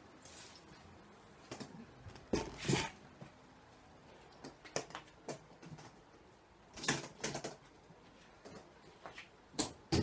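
Knocks and clatters of a road-case half, plywood panels with aluminium edging, being picked up, carried and set onto the matching lower case. The loudest knocks come about two and a half seconds in and again near seven seconds, with a sharp knock just before the end as it is placed.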